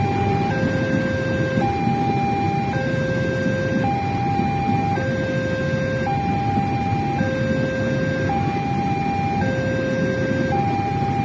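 Railway level-crossing warning alarm sounding a two-tone electronic signal, a high and a low tone alternating about once a second, the signal that a train is approaching and the barrier is closing. A steady low rumble runs underneath.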